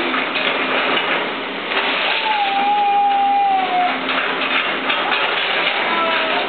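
CAT tracked excavator demolishing a wood-frame house: a steady din of the machine's engine and crunching, breaking timber. About two seconds in, a single drawn-out squeal lasts nearly two seconds.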